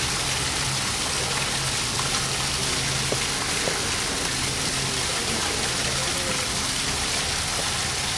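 Steady rushing noise, like rain or water, with a faint low hum underneath.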